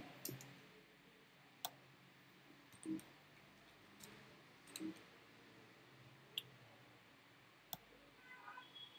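Faint, sparse clicks of a computer mouse and keyboard, about seven spread unevenly over several seconds, against near silence.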